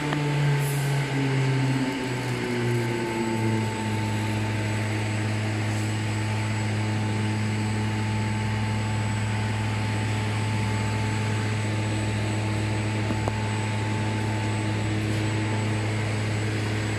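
Steady low machine hum with a few overtones, from a digital gasket cutter. It falls in pitch over the first few seconds, then holds constant.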